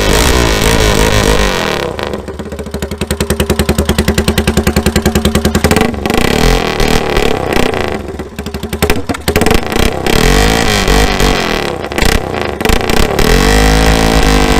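Custom mini bike's small gasoline engine running loud through its exhaust, which sounds like it's gone mad: revving, dropping to an evenly pulsing idle about two seconds in, then revving up again from about six seconds on.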